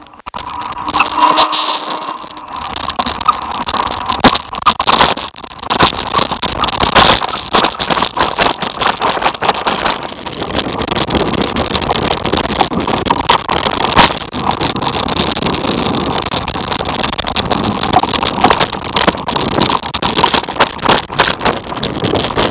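Riding fast down a rough, rutted dirt trail: a loud, constant rush of noise with continual rattling and knocks over the bumps.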